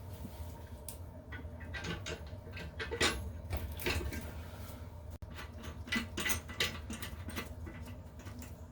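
Irregular small scrapes, clicks and rustles of hands and tools working on a toilet at the leaking tank-to-bowl seal, over a steady low hum.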